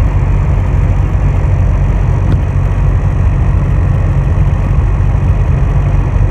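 A motor vehicle driving: a steady, loud engine and road rumble with a deep low end.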